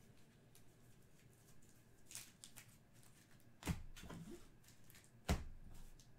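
Trading cards and foil packs being handled: soft rustling and a few clicks, with two short knocks on the table about three and a half and five seconds in.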